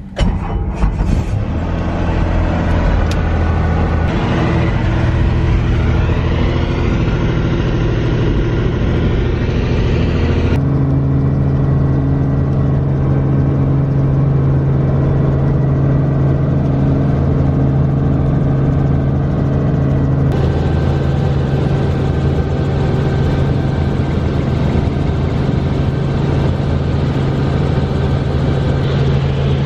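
Helicopter engine and rotor running loud and steady, heard from inside the cabin as it lifts off and climbs. The sound changes abruptly about ten seconds in, where a deeper steady hum takes over.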